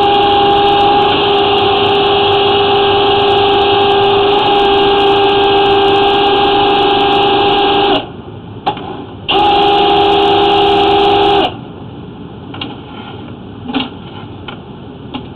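Flex-shaft drain-cleaning machine running with a steady high whine as it spins a chain cutter through tree roots in a clay sewer line. It runs for about eight seconds, stops, then runs again for about two seconds.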